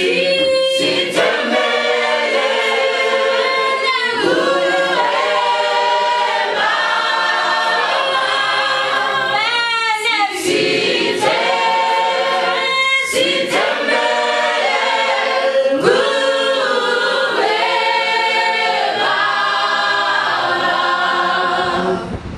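A mixed youth choir of male and female voices singing a cappella in harmony, in long sustained phrases. The singing stops near the end and gives way to the rush of wind and surf.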